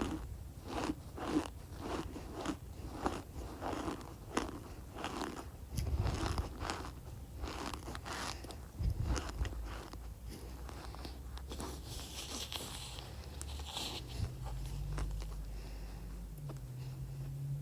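Packed cornstarch crunching and squeaking under pressure, in a run of short crunches about two a second, becoming softer and less distinct in the second half.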